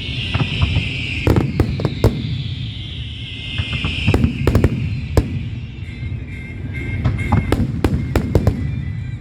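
Aerial fireworks bursting in quick succession: many sharp bangs over a continuous low rumble of booms. Twice in the first four seconds, a long hiss falls in pitch.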